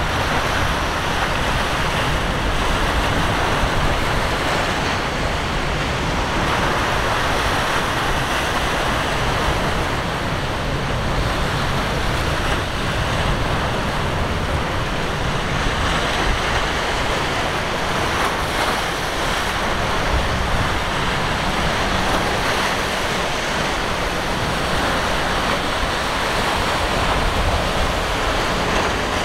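Rough surf and choppy waves washing and breaking, with wind buffeting the microphone. It is a steady rushing noise with no distinct engine note standing out.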